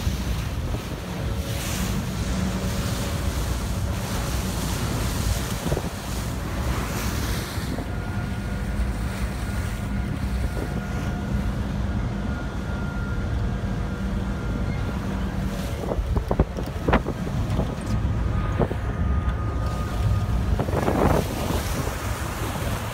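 Wind buffeting the microphone over the steady low drone of a car ferry's engines and the rush of water along its hull.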